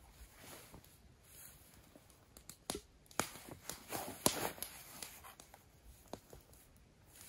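A run of irregular light knocks and clicks, most of them between about two and a half and five and a half seconds in.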